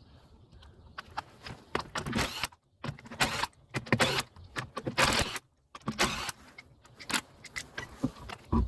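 Metal hand tools clinking and clattering with rustling handling noise, in irregular bursts and short pauses.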